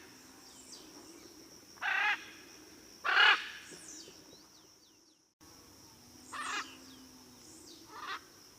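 Blue-and-yellow macaw giving four harsh, loud squawks a second or more apart, the second the loudest, over a steady high-pitched background drone and faint chirps of smaller birds. The sound cuts out for an instant about five seconds in.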